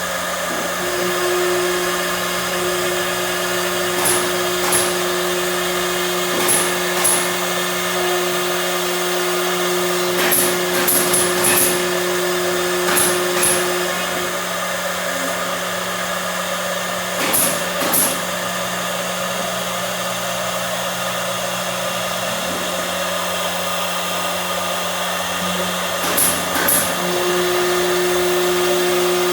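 CNC machine running: a steady motor whine and hum. One tone drops out about halfway through and comes back near the end, and short high chirps, mostly in pairs, recur every few seconds.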